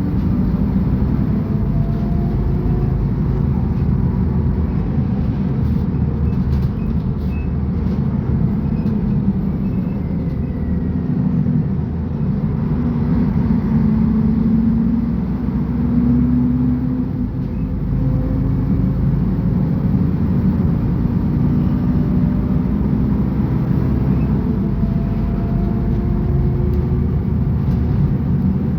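Mercedes-Benz O500UA bus diesel engine running while the bus drives, its pitch climbing and dropping back several times as it pulls away and changes speed.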